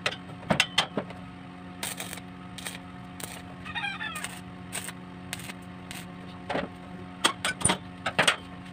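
Irregular sharp metal taps and knocks of a hand tool on a welded square-tube steel frame, about a dozen of them, over a steady low hum. A brief high chirping sound comes about four seconds in.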